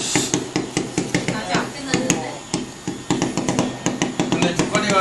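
Fireworks crackling: many sharp, irregular pops in quick succession, with people's voices mixed in.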